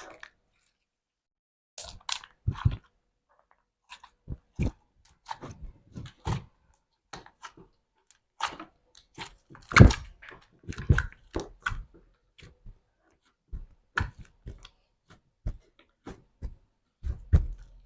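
Slime being squeezed and pressed by hand, making irregular sticky clicks, pops and crackles with short pauses between them, loudest about ten seconds in.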